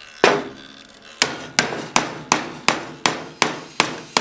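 Hammer blows on wood: a single strike, then a steady run of sharp blows about three a second, knocking apart two glued pieces of wood.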